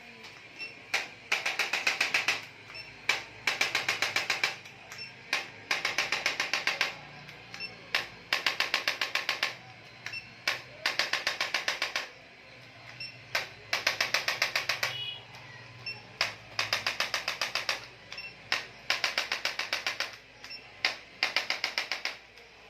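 Electric chiropractic impulse adjusting instrument firing rapid series of clicking thrusts. The bursts are about a second and a half long and repeat every two to three seconds, with one or two single clicks often just before each burst.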